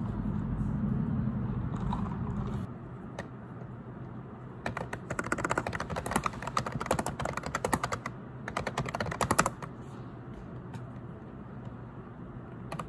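Rapid typing on a keyboard in two quick runs of dense key clicks, after a steady low hum that stops about two and a half seconds in.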